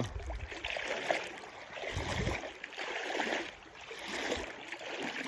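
River water sloshing and splashing, swelling about once a second, with a few low thuds.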